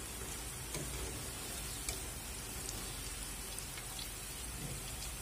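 Potato fingers deep-frying in plenty of hot oil: a steady, even sizzle with a few faint ticks. The fries have crisped up.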